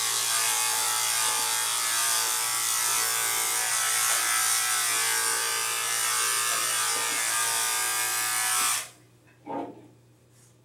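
Electric dog grooming clipper running steadily as it trims a dog's coat, then switched off about nine seconds in. A couple of faint knocks follow.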